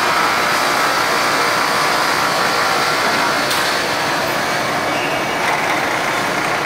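Steady machinery din of a board production line's sanding and edging section: belt-driven roller conveyor and processing machines running together as a board travels along the rollers.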